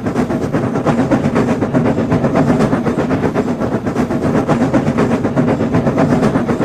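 Steam locomotive running along the track, a fast, even rhythmic beat of chuffs and wheel clatter.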